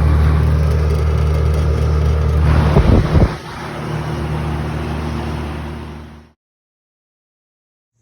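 1972 Singer central air conditioner's outdoor condensing unit running: a steady low compressor hum under condenser fan noise. About three seconds in comes a short, loud low rumble, after which the unit sounds quieter. The sound cuts off abruptly a little after six seconds.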